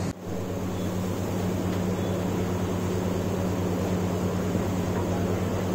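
A steady low mechanical drone with a constant hum, like a motor or fan running.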